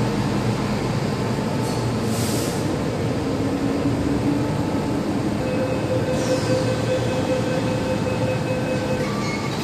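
Hong Kong MTR M-Train standing at the platform with a steady hum of equipment and ventilation, and a short hiss about two seconds in. About five and a half seconds in, a held warning tone starts and runs for about three and a half seconds as the train doors and platform screen doors close, then shifts pitch briefly.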